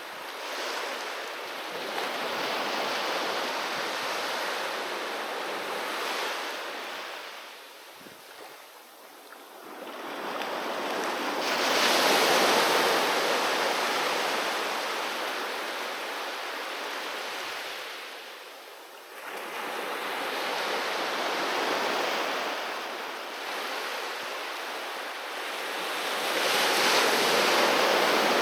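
Sea waves breaking and washing up on a beach, each surge swelling and fading over several seconds, with lulls in between; the loudest surge comes about a third of the way in and another near the end.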